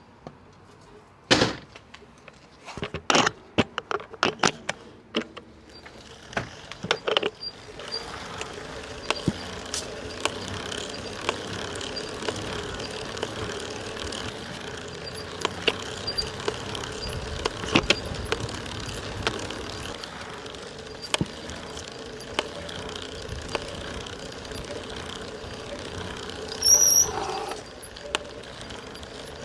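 Shimano EP801 e-bike mid-drive motor running with the cranks turning, a steady hum broken by a short crack or knock every second or two. The knock comes at the same point of each crank turn, and the owner links it to growing axial play in the drive unit. A run of sharp clicks comes first, and a brief louder high-pitched sound near the end.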